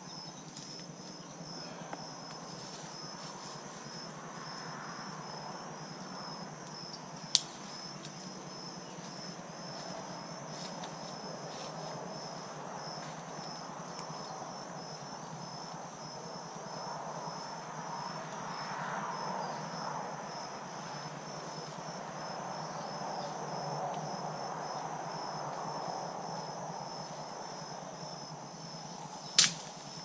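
Insects chirping in a steady, high, pulsing trill throughout. A soft rushing swells and fades in the second half, and two sharp clicks or snaps stand out, one about seven seconds in and one near the end.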